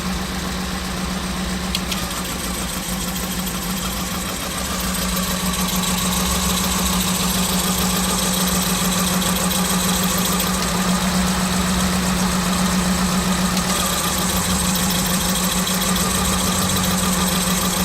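Daihatsu 1.3 EFI 16-valve four-cylinder engine idling rough, misfiring on cylinder number 4. It grows louder about five seconds in and stays so.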